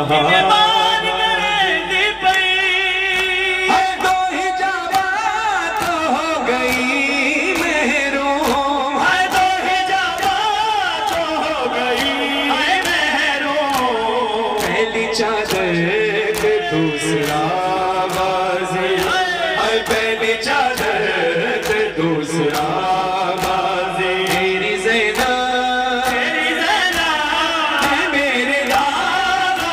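Live noha: a man's lead voice chanting a Punjabi mourning lament through a microphone, taken up by a chorus of men. Under the singing runs a steady beat of matam, hands striking bare chests, about one stroke a second.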